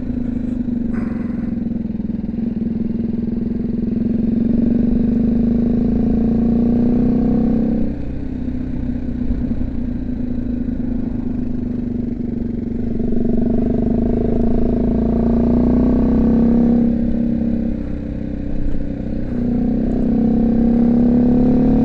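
BMW G310GS single-cylinder motorcycle engine running under way, heard through a helmet-mounted mic with wind noise. The engine note eases off at about 8 seconds and again near 18 seconds, and picks up again after each dip.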